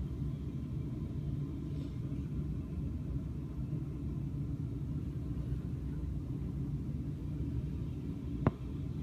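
Steady low rumble, with one sharp click near the end.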